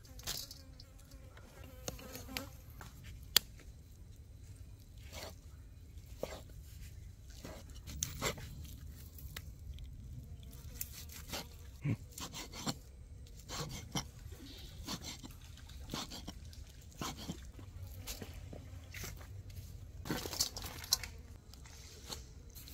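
A fly buzzing, with scattered light clicks and knocks of food handling throughout.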